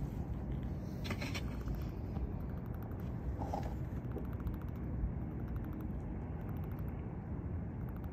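Steady low rumble of outdoor background noise, with a few faint scratchy clicks about a second in and a short faint higher tone a little later.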